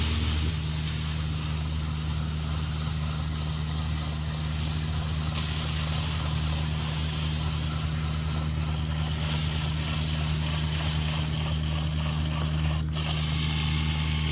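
Cordless electric caulking gun's motor and gear drive running steadily, pushing the plunger through a caulk tube, over a steady low hum.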